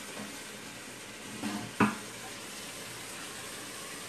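Kitchen faucet running steadily into a stainless steel sink, with a short sharp knock a little under two seconds in.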